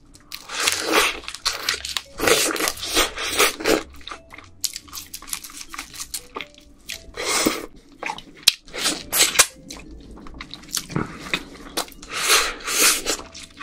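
Close-miked chewing and biting of boiled crab meat with its innards, a rapid run of short mouth noises with brief pauses.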